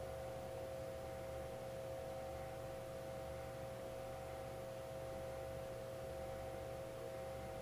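Steady hum made of a few constant mid-pitched tones, from equipment running in a commercial kitchen.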